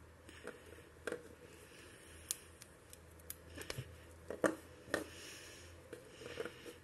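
A plastic Teenage Mutant Ninja Turtles action figure and its parts being handled: scattered light clicks and knocks of hard plastic against plastic and against a tabletop. The loudest knocks come in the second half.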